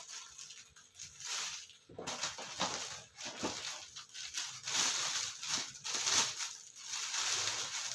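Irregular rustling and crackling from a dancing cactus toy being handled and turned over in the hands close to the microphone.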